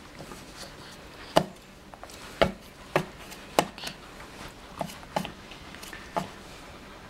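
A baby's hand slapping a wooden high chair tray: about seven sharp, irregular knocks.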